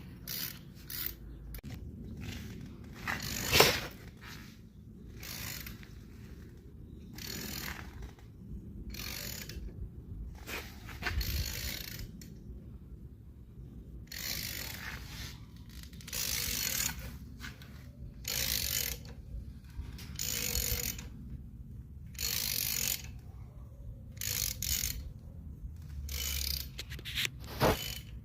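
Ratchet wrench clicking in repeated strokes, about one every second or two, turning the screw of a gear puller to draw the lower timing chain gear off the crankshaft of a big-block Chevy engine. A sharper, louder click comes about three and a half seconds in and again near the end.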